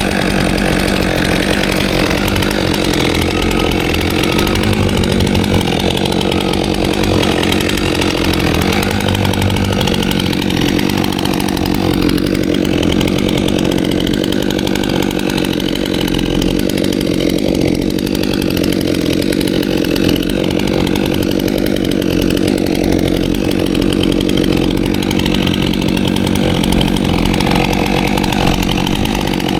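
Stihl MS 400 C-M two-stroke chainsaw running steadily at full throttle under load, cutting through wood without pause.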